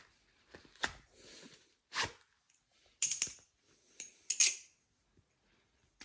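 Aluminium-handled balisong (butterfly knife) being flipped: sharp metallic clacks of the handles and latch striking, spaced irregularly about a second apart, some with a brief ring. The loudest comes a little past the middle.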